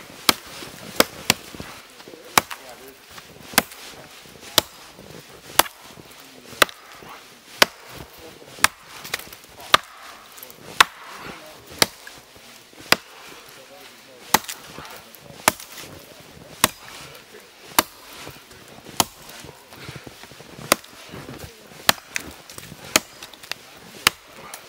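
Axe chopping into a fallen tree trunk: sharp, regular strikes at about one per second, cutting a notch through the log.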